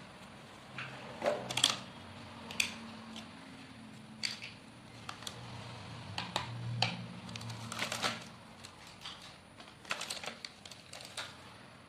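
Hard plastic toy dishes and pieces being handled and unpacked from a plastic carrying case, making irregular clicks and clacks, with some crinkling of plastic wrapping.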